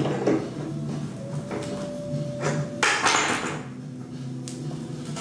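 Hammer blows on a wooden shoring prop, knocking the temporary support loose: a few spaced knocks, the loudest about three seconds in.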